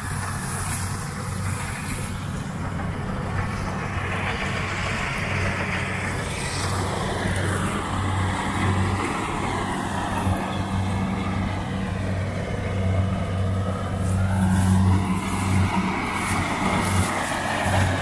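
Kubota rice combine harvester running as it cuts and threshes: a steady low diesel engine drone with shifting, gliding whines from the machinery above it, a little louder in the last few seconds.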